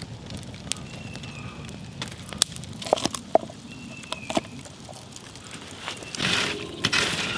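Meat cleaver chopping green beans on a wooden slab: a scattering of sharp knocks on the wood, then a longer, louder scraping rustle near the end.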